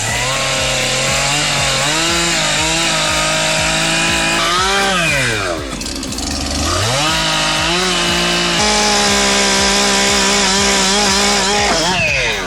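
Chainsaw running at high revs, easing off to near idle about five seconds in, then revving back up to cutting speed and stopping near the end.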